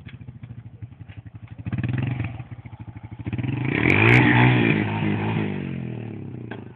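ATV (quad bike) engine running under throttle, rising about two seconds in and loudest around four seconds as the machine passes close, its pitch sweeping up and down, then easing off near the end.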